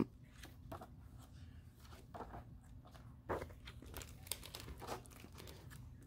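Pages of a large hardcover book being turned and handled: soft paper rustles and a few light paper clicks, the clearest about three seconds in, over a faint low hum.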